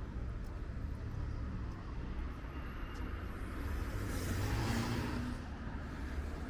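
A car passes close by, its engine and tyre noise swelling and fading over about two seconds midway. Steady low traffic rumble runs underneath.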